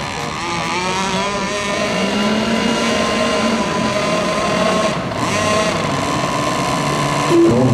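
Radio-controlled racing boats running flat out, several high-pitched motor whines overlapping, with their pitch wavering up and down as the boats race.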